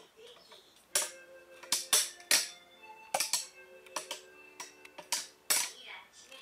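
Background music: a light tune of about ten sharp, wood-block-like hits with held notes between them.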